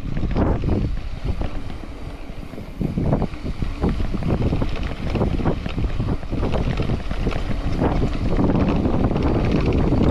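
Mountain bike riding down a loose, rocky dirt trail: wind buffeting the microphone, tyres rumbling over gravel, and irregular knocks and rattles from the bike on the bumps.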